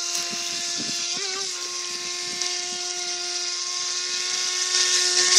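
Electric motor of an FT007 RC speedboat whining at a steady high pitch as the boat runs across the water, with a brief wobble in pitch about a second in.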